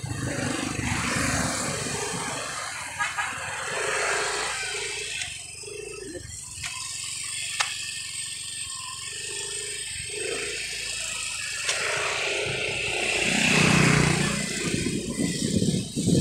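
Motorcycle being ridden along a road, its engine running under wind rushing over the phone microphone, with a louder swell near the end.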